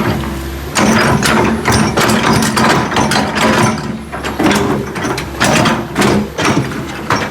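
Backhoe engine running steadily, with a string of irregular knocks and clanks, several a second, over it.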